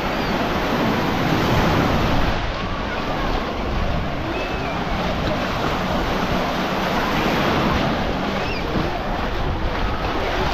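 Baltic Sea surf washing onto a sandy beach in a steady rush, with wind buffeting the microphone.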